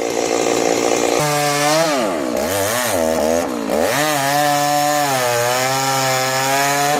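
Stihl MS 290 Farm Boss two-stroke chainsaw cutting into a large cottonwood trunk. The engine pitch sags sharply under load a few times in the middle and climbs back to full revs.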